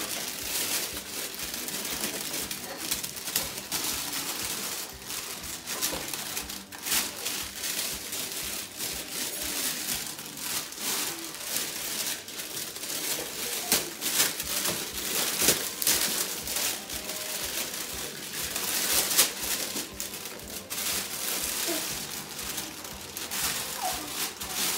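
Gift wrapping paper being ripped and crumpled by hand, many short tearing and rustling sounds one after another.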